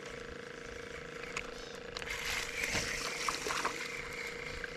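Steady hum of a small boat motor under way, with water swishing and rushing along the hull from about two seconds in.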